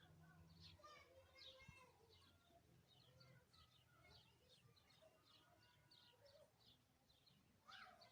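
Birds chirping faintly, many short high calls following one another, over a low steady hum.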